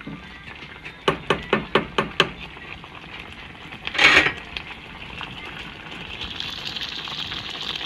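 A wooden spatula stirs a pan of simmering clam chowder and taps six times in quick succession on the pan, then a single brief loud rustling burst. After that the chowder simmers with a steady hiss that grows slowly louder.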